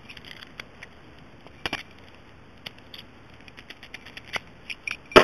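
Scattered small metallic clicks and taps from a brass padlock and lock picks being handled, at irregular intervals, with the sharpest click at the very end.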